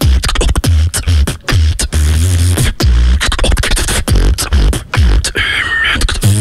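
Amplified beatboxing through a handheld microphone: deep bass kicks about twice a second under sharp snare and hi-hat clicks, with sliding vocal tones and a held high buzzing tone about five seconds in.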